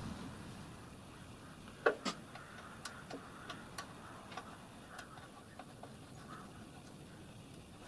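Faint clicks and taps of a hand tool working inside a small metal locomotive water tank as a strainer fitting is screwed in: two sharper clicks about two seconds in, then scattered light ticks.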